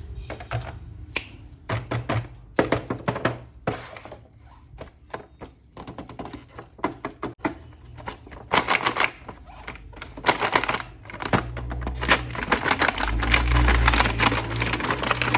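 Hands handling a toy action figure and its packaging: scattered sharp clicks and taps, then, from about eight seconds in, a dense stretch of crackling and rustling.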